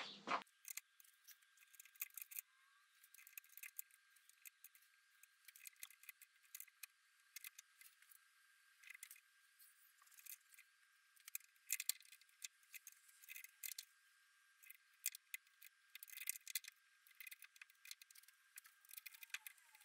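Near silence broken by faint, irregular clicks and light taps of hand work on a motorcycle's handlebar controls, over a faint steady high tone.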